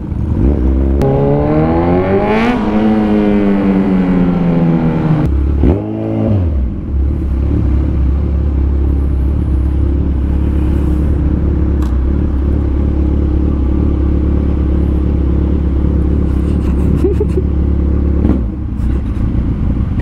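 Motorcycle engine revving up and easing back down over a few seconds, with a second short blip near six seconds, then settling into a steady low rumble at a crawl.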